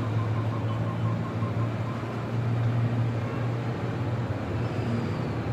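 A steady low mechanical hum under a background hiss.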